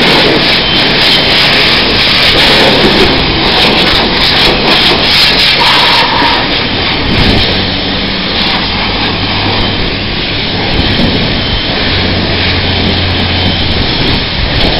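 Car wash high-pressure wand spraying water onto a scooter: a loud, steady hiss, with a low hum underneath.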